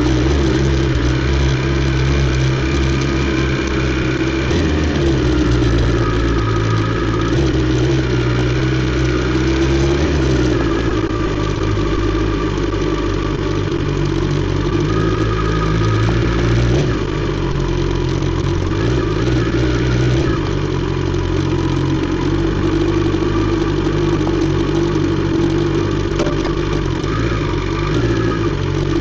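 BMW S 1000 XR inline-four engine running through an Akrapovic exhaust, its note holding steady and then stepping to a new pitch several times.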